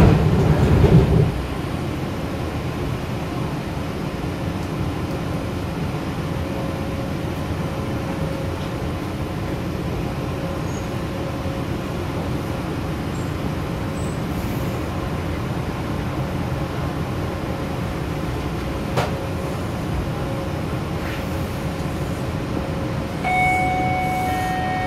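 Detroit People Mover car standing at a station, its equipment and ventilation giving a steady low hum, with a single sharp click about two-thirds of the way through. Near the end an electronic chime of several steady tones starts up.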